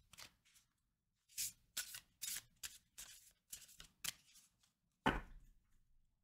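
A deck of oracle cards being shuffled by hand: a string of short, soft card-slipping strokes about two a second, then a single louder thump near the end.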